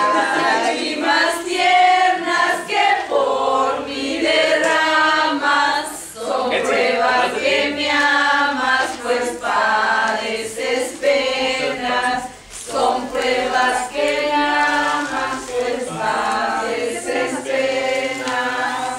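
A group of people singing together, several voices in phrases, with a short pause about two-thirds of the way through.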